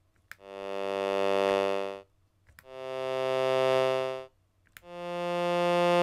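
Sawtooth synth tones from a Teensy 3.6 audio board through a small amplifier: three chords of notes played together, each swelling in gradually under a slow ADSR attack, holding briefly, then dying away. A short click of a push button comes just before each chord.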